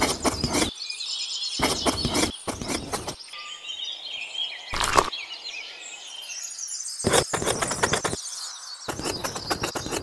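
A miniature trowel scraping and spreading wet cement mortar in several short strokes, each under a second. Birds chirp in the background between the strokes.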